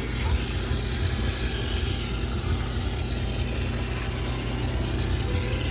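High-pressure steam cleaner running steadily: an even hiss of steam over a low machine hum.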